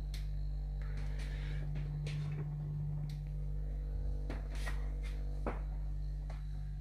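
Hotpoint two-door fridge running with a steady low hum, its compressor working after the repair, with several light knocks and clicks scattered through it.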